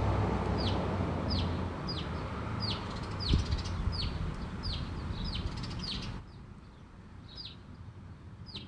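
Small songbirds chirping, a short falling chirp repeated about every two thirds of a second, then a few more after a brief gap near the end; the observer takes them for house finches or house sparrows. A low background rumble sits under the first six seconds and stops suddenly, with a single soft thump about a third of the way in.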